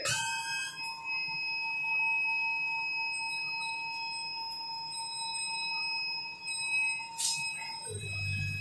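Laser cutting machine running while it cuts acrylic sheet: a steady whining tone that stops shortly before the end, with a sharp click at the start and another about seven seconds in.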